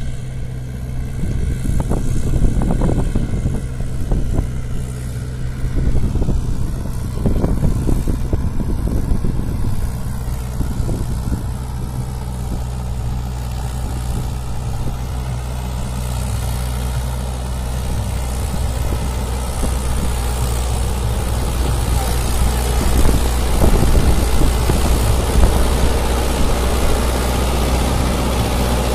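Diesel tractor engine running steadily under load while pulling a loaded trolley, getting a little louder in the last several seconds.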